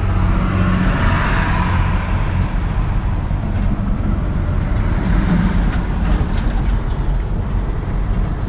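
Semi truck's diesel engine running steadily, a low, even hum heard from inside the cab while the truck rolls slowly.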